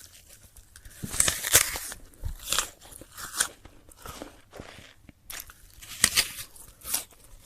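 A crisp, crunchy apple being bitten into and chewed: a loud cluster of crunches about a second in, then a run of separate crunches with short quiet gaps between.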